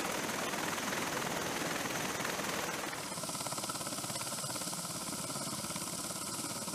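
V-22 Osprey tiltrotor running on the ground, a steady rush of rotor and engine noise with a fast, fine pulsing. About three seconds in the sound shifts to a hissier tone.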